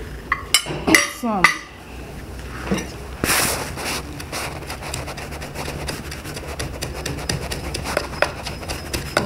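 Kitchen utensils and dishes knocking and clinking, with a short scraping rub a little over three seconds in and light tapping after it, as seasonings are handled in a bowl.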